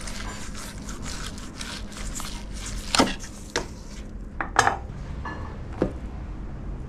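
Dishes and cutlery clattering in a kitchen: a run of light clicks and scrapes, with a few sharper clinks about three, four and a half and six seconds in, one of them ringing briefly.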